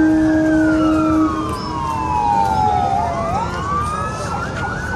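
Emergency vehicle siren wailing, its pitch sliding slowly down over about three seconds and then sweeping back up. A steady horn blast sounds over the first second or so and then cuts off.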